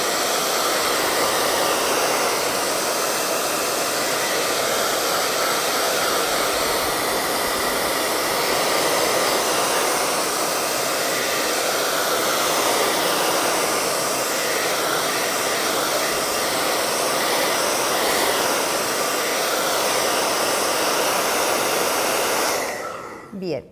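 Hand-held hair dryer blowing steadily, drying a fresh coat of matte varnish. It stops near the end.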